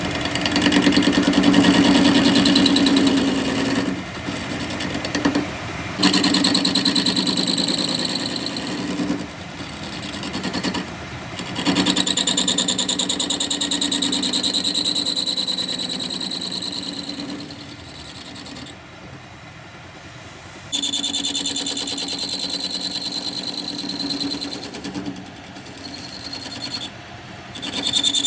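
Metalworking machine running and cutting iron, in several spells of a few seconds each that start abruptly, with quieter gaps between and a high whine that rises and falls while it bites.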